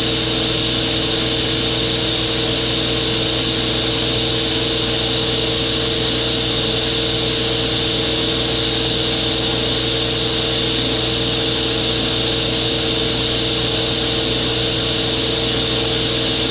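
Belt-driven table saw running steadily at speed: an even motor hum with a constant high whine, and no clicks or knocks. Its drive belt has just been tightened, and the earlier clicking was traced to the belt rather than a failing arbor bearing.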